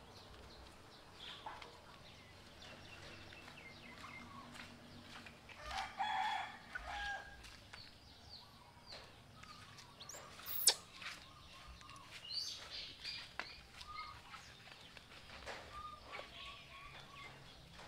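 Scattered faint animal calls: short squeaks and chirps, the loudest a single sharp falling squeak about ten seconds in.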